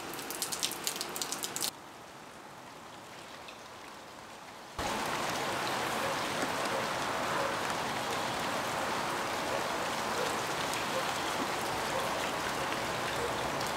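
Rain falling on a tiled patio and garden. For the first second and a half, separate drops tick close by. The rain is quieter for the next few seconds, then a steadier, louder rain hiss starts about five seconds in.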